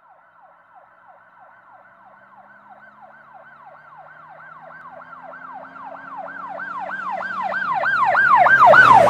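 Siren-like wail of quick rising-and-falling pitch sweeps, about three a second, growing steadily from faint to loud over a faint low drone.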